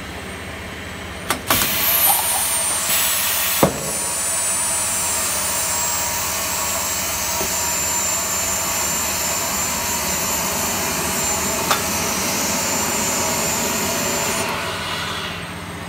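A machine running with a steady rushing noise and a faint high whistle, after a few clicks in the first seconds. It eases off near the end.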